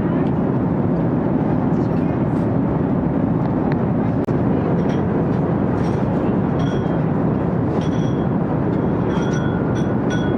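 Steady airport ambience: a low, even rumble with a murmur of voices. A few faint short high pings sound in the second half.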